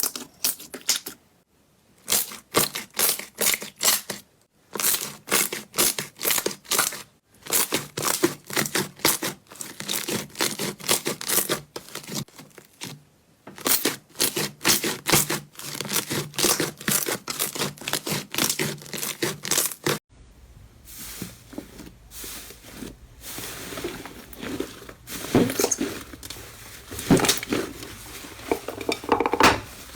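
Slime being handled by hand, giving dense runs of quick crackling pops and clicks in bursts with short pauses. About two-thirds of the way through the sound changes abruptly to a quieter, hissier texture with occasional louder pops.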